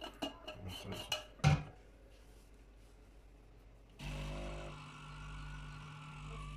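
A few short clicks and knocks, the loudest about a second and a half in. Then a Siemens EQ.500 Integral coffee machine starts suddenly, about two-thirds of the way through, and runs with a steady hum as it makes a latte macchiato.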